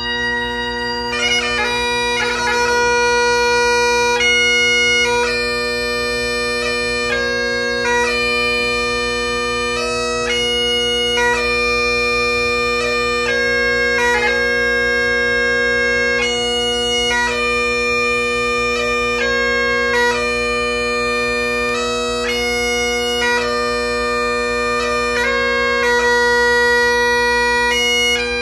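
Great Highland bagpipe played solo: the drones hold one unbroken chord beneath a chanter melody that steps from note to note, with most notes held about a second.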